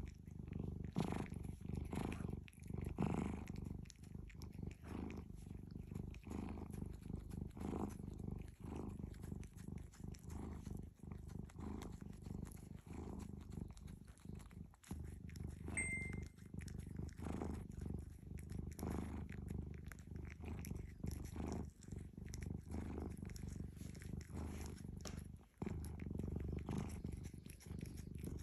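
Korean shorthair cat purring steadily while sucking on its own paw, with soft sucking sounds over the purr.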